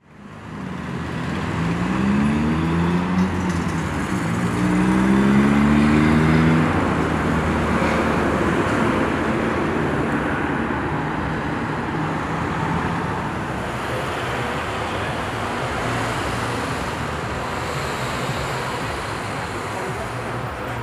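Steady road traffic on a multi-lane city road, a continuous rush of tyres and engines. Twice, about two and five seconds in, a vehicle's engine rises in pitch as it accelerates past.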